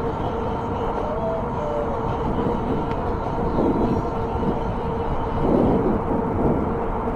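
Ancheer e-bike on the move: a steady rush of wind on the handlebar camera's microphone with road traffic, over a steady whine from the bike's hub motor. The noise swells briefly twice in the second half.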